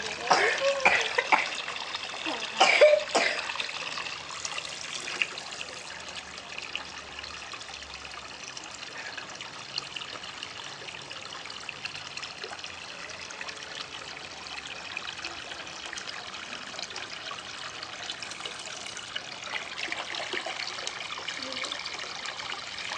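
Water trickling steadily from a garden hose into a pond. In the first three seconds a few short, loud cough-like sounds cut in over it.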